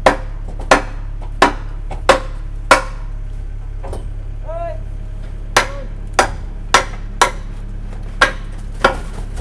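Sharp, evenly paced hammer-like knocks, a run of five and then, after a short pause, six more, about one and a half a second, over a steady low machine hum at a concrete pour.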